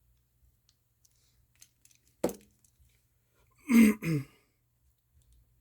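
A man clearing his throat: one short sharp sound about two seconds in, then a louder two-part throat-clearing sound a little later. Faint small ticks of handling come before it.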